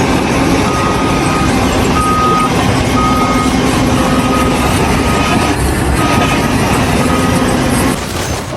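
A heavy vehicle's reversing alarm beeping about once a second, seven times or so, over loud, steady engine and machinery noise. The sound changes abruptly near the end.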